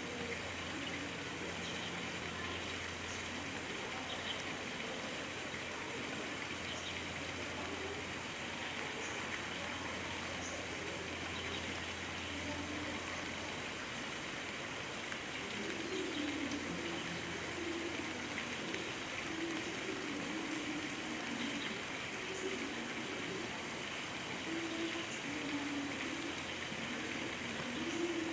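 Steady wash of running water, with a faint murmur of voices coming in from about halfway through.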